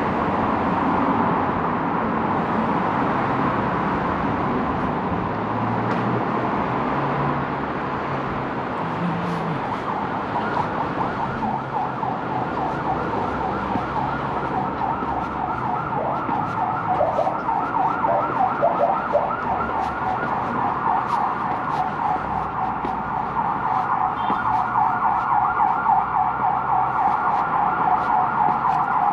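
Emergency vehicle siren in a fast repeating yelp, starting about a third of the way in and growing louder near the end, over steady road-traffic noise.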